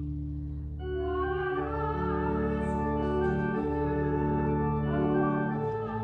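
Church organ playing slow, held chords, with bass notes sounding first and higher notes joining about a second in.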